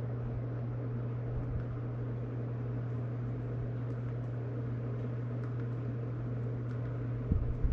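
Steady low hum with an even fan-like hiss, the background noise of the room, with a few faint ticks scattered through it.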